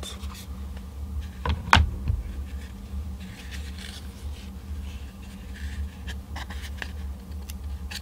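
Hands handling a hard plastic battery case lined with molded EVA foam: soft rubbing and scraping, with a sharp plastic click just under two seconds in. A steady low hum runs underneath.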